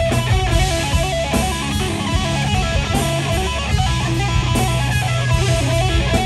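Live rock band playing: a Flying V electric guitar plays a lead line of quick stepping notes over bass and drums.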